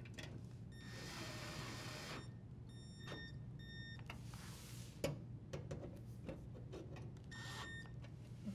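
Cordless drill driver running in short bursts with a high whine as it drives the toe kick screws into a dishwasher, about a second and a half at a time near the start, then briefly around four seconds in and again near the end, with light clicks between runs.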